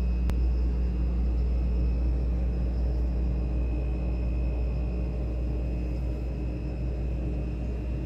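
Freezer running: a steady low hum with a faint constant high whine above it. There is a single click about a third of a second in.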